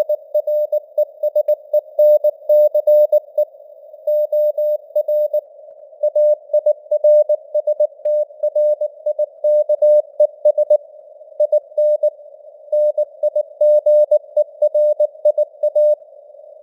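Morse code (CW) tone sent at 19 words per minute, spelling out news headlines: a single mid-pitched beep keyed on and off in quick dots and dashes, with short pauses between characters and words. A narrow hiss of simulated radio noise sits around the tone and stays audible in the gaps.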